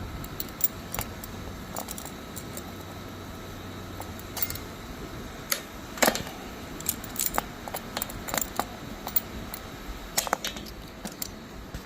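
Irregular metallic clicks and clinks of locking pliers (vise grips) being clamped and worked on a dolly wheel's axle lock washer.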